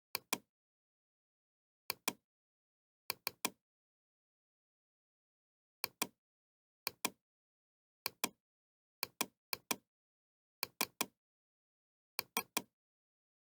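Computer mouse clicking, mostly in quick pairs of sharp clicks with a few triples, at irregular intervals with dead silence between.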